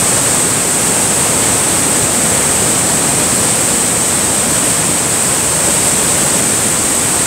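Niagara Falls pouring onto the boulders at its base, heard close up as a loud, steady rush of water.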